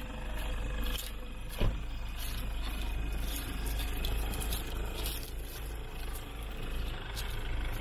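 Engines of stopped four-by-four vehicles idling, a steady low rumble, with a single sharp knock about one and a half seconds in.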